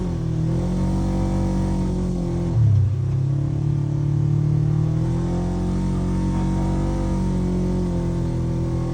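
Polaris RZR 900 UTV engine running under changing throttle, its pitch rising and falling as it drives over sand dunes. About two and a half seconds in, the pitch dips and there is a brief louder burst.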